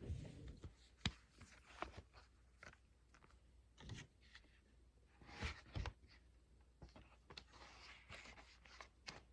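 Faint handling noises of cards and cardboard packaging: scattered light clicks and brief rustles, the loudest a pair of knocks a little past halfway, over near-silent room tone.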